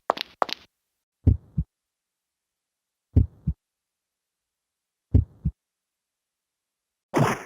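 Heartbeat sound effect from a Yamaha YPT-300 Portatone keyboard: three low double thumps, lub-dub, about two seconds apart.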